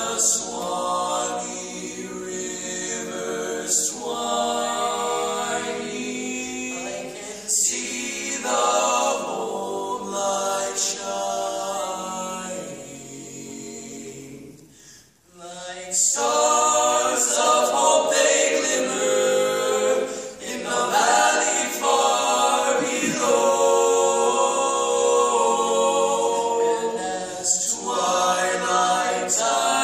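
Barbershop quartet of four male voices singing a cappella in close harmony. The singing softens and briefly breaks off about halfway, then comes back louder.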